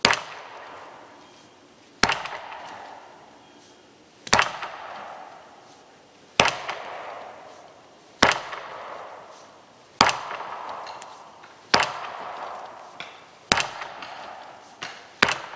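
Axe chopping wood: nine heavy strokes about two seconds apart, each a sharp knock that echoes briefly.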